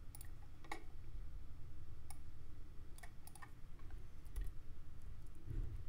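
Irregular clicks of computer keyboard keys and mouse buttons as data is typed into a spreadsheet, about ten light clicks in all, over a low steady room hum.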